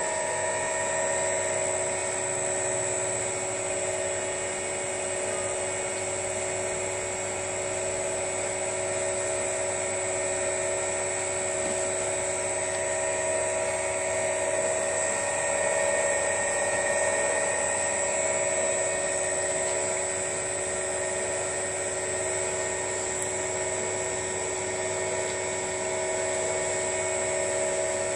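Dikmaksan DMS 500 cold-press screw oil press running steadily while pressing walnuts: an even motor-and-gearbox whine made of several held pitches.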